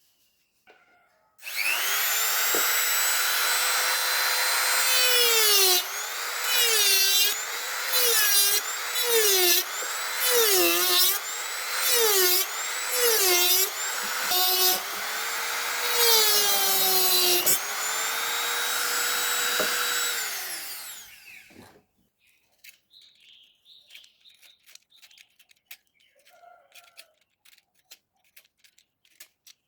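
A small high-speed electric motor, such as a mini drill or rotary tool, starts up with a steady high whine. In the middle its pitch dips and recovers about ten times, as it does when it is pressed into work. It then runs steadily again, winds down and stops, leaving a few faint clicks and taps.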